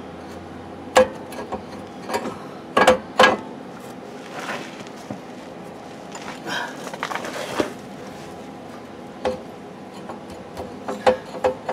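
Steel bracket knocking and clanking against a truck's axle housing as it is test-fitted by hand. There are a few sharp metal taps, the loudest about a second in and twice around three seconds in, and more near the end.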